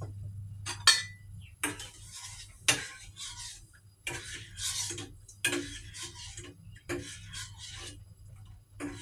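Metal kitchenware clattering: irregular knocks and clinks about once a second, with scraping between them, from utensils working against a metal saucepan.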